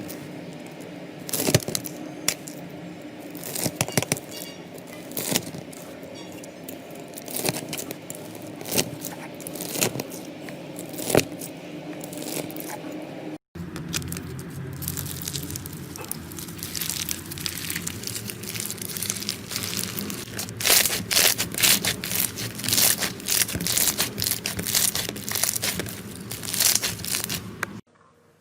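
Slime being squeezed and poked by hand, giving irregular sharp crackles and clicking pops over a low steady hum. It breaks off abruptly about halfway through, then comes back as a denser, quicker run of crackles.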